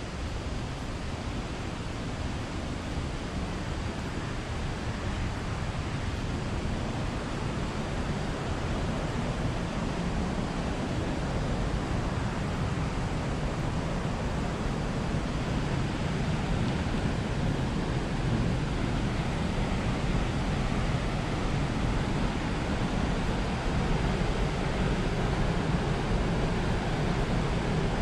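Steady rush of flowing water, growing gradually louder.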